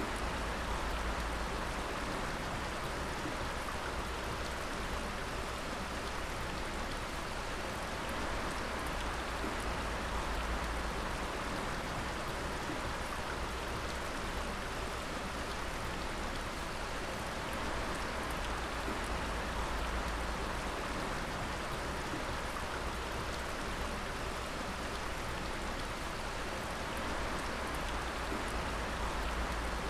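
Many drops of water dripping and splashing steadily, falling so thickly together that they run into a continuous patter like rain.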